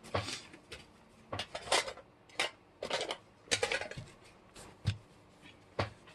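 Hard objects being rummaged through and moved about: about ten irregular clicks, knocks and clatters.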